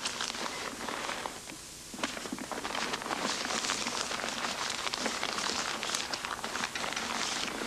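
Continuous crackling and rustling noise with many small clicks, briefly quieter about two seconds in.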